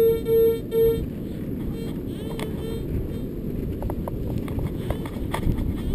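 Minelab Sovereign GT metal detector giving a target signal: a run of short, even beeps, loud in the first second and fainter ones around two to three seconds in, which the detectorist takes for a coin. Strong wind rumbles on the microphone throughout, with a few faint clicks later on.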